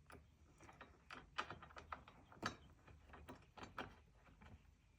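Faint, irregular clicks and light taps of metal hardware being handled as crash bar bolts are loosely started by hand.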